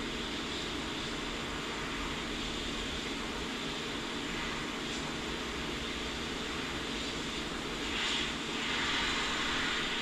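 Hot-air rework gun blowing steadily, a constant rushing hiss with a faint hum, as hot air is swept over a circuit board's solder joints to desolder a USB port. The hiss grows louder about eight seconds in.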